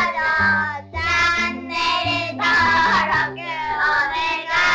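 Upbeat outro jingle: music with a sung vocal melody over a stepping bass line.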